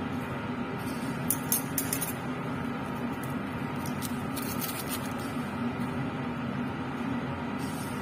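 Steady hum of a laminar air flow cabinet's blower, with light clinks of metal forceps and glassware being handled, a cluster about a second and a half in and more around four to five seconds in.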